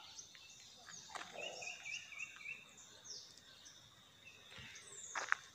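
Faint birdsong from roadside trees: scattered short chirps and downward whistles, with a quick run of about five repeated notes in the middle, over a steady faint high whine. A sharp click near the end.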